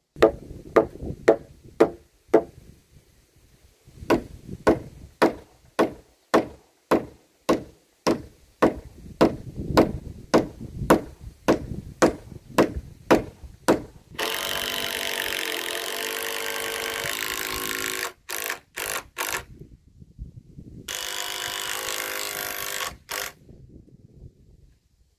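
A run of sharp, evenly spaced knocks on the timber, about two a second, then a cordless drill driving screws into the pine frame: a steady run of a few seconds, a few short trigger pulses, and a second run of about two seconds.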